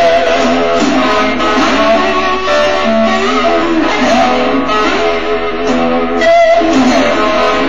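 Guitar music, an electric guitar playing notes that slide up and down in pitch over a dense, steady accompaniment.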